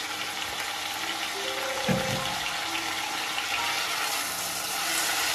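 Chopped red peppers, red onion and basil sizzling steadily in olive oil in a saucepan while a wooden spoon stirs them, with a single knock about two seconds in.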